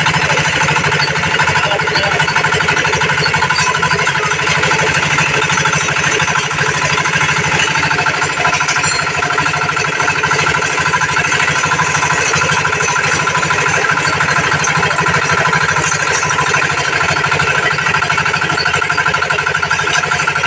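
Engine-driven abaca fibre stripping machine running steadily, with a fast, even pulse.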